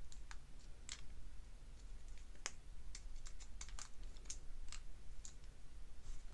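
Irregular light clicks and ticks of a small Torx screwdriver working screws out of the metal body of a Shimano Stradic spinning reel.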